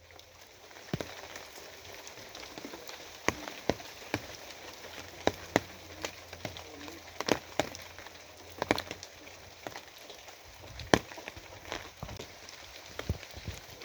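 Steady rain falling, with heavy drops striking a surface in irregular sharp taps, a few of them louder than the rest. The rain swells in over the first second.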